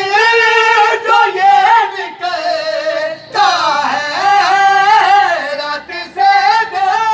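Men singing a Shia devotional song (a manqabat), in long, high, held melodic lines with short breaks for breath.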